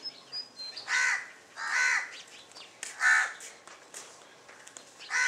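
A crow cawing: four loud caws, the last near the end.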